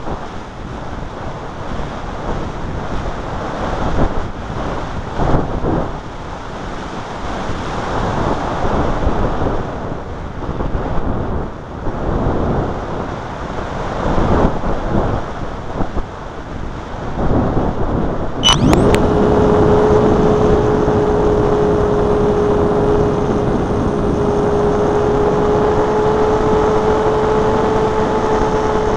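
Gusty wind buffeting the microphone. About two-thirds in, the Multiplex Blizzard RC glider's electric motor starts with a quick rising whine and then runs at a steady pitch.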